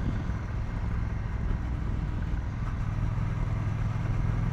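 A 2018 Triumph Bonneville T120's 1200 cc parallel-twin engine and exhaust running steadily while the motorcycle cruises along the road: a steady low engine note over road and wind noise.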